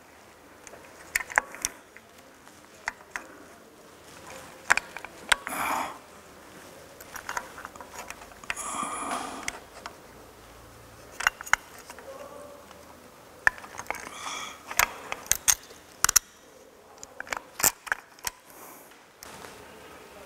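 Irregular metallic clicks and clinks of hands and tools working on an engine's timing belt tensioner and belt, with two short rasping scrapes about five and nine seconds in.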